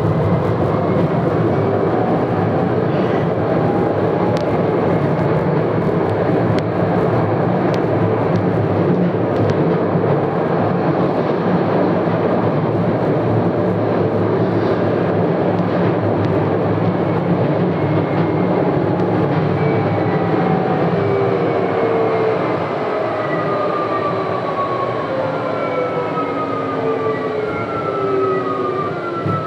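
Hitachi Rail tram running, heard from inside the passenger cabin: a steady rumble of wheels on rails. In the later part a series of falling whines comes from the electric traction drive as the tram slows.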